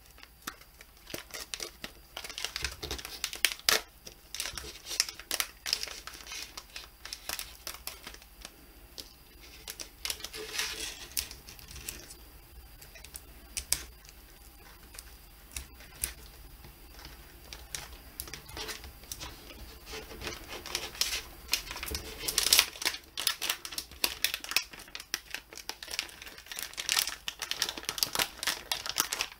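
A foil-backed plastic zip-lock bag being pulled open and handled: crinkling plastic with many quick, irregular clicks and crackles, busiest near the end.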